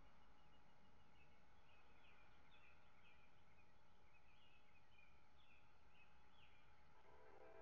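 Near silence at night: a bird chirps faintly in short high notes, a few a second, over a low, steady background hiss. A distant train horn begins to sound faintly near the end.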